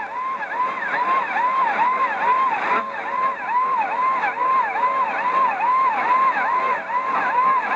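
Alarm-like warbling tone received on shortwave at 9920 kHz: the pitch rises and falls in even sweeps about two and a half times a second over radio hiss. The uploader takes it for a jamming signal, apparently echoing because two transmitters carry it.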